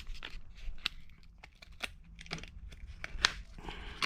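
Hands handling small parts and their packaging: scattered light clicks with crinkling and rustling, and one sharper click a little after three seconds.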